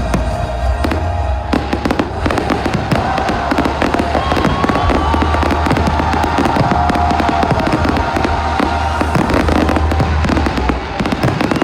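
Fireworks going off in a dense, continuous barrage of bangs and crackles, with several long steady tones sounding underneath.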